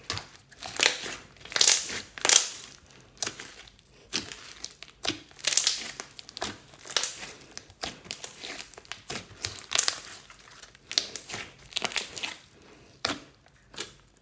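Hands kneading and squeezing glossy slime: wet, sticky crackling and squishing in irregular bursts, about two a second.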